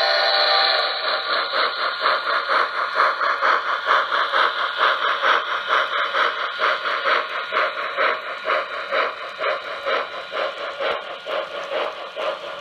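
Digital sound system of an HO-gauge Tenshodo Quantum D61 steam locomotive model: a held whistle tone cuts off about a second in, then a steady rhythm of steam exhaust chuffs follows, growing quieter toward the end.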